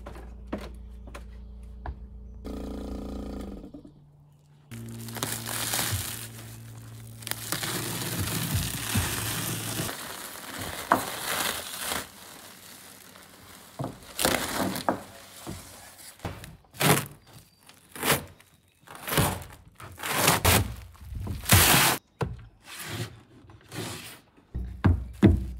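Plastic vacuum-bag film and peel-ply layers being torn off a cured fibreglass laminate: crinkling, then a run of sharp rips in the second half. Background music plays over the first few seconds.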